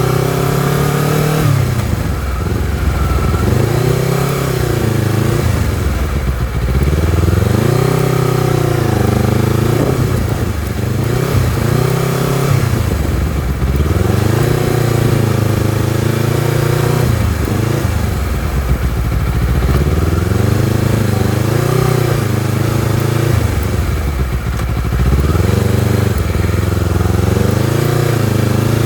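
Honda CBR250RR motorcycle engine and exhaust under way, its pitch repeatedly rising under throttle and dropping back every four to six seconds.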